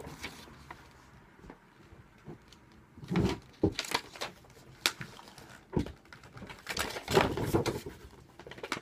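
Small plastic toy pieces and clear plastic packaging being handled and set down: scattered clicks and taps, with a denser patch of rustling and clattering near the end.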